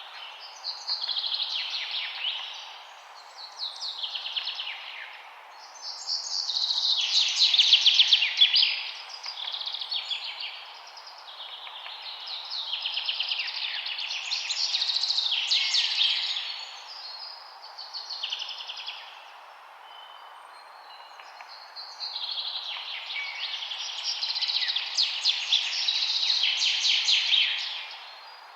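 Songbird singing a run of phrases of rapid, high chirping notes, each phrase lasting one to a few seconds with short pauses between, over a steady background hiss.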